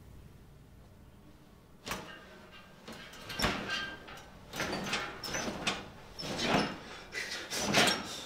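A run of irregular rustles, knocks and creaks as a person shifts and struggles to get up in a hospital bed. It starts with a sharp knock about two seconds in, after a quiet start.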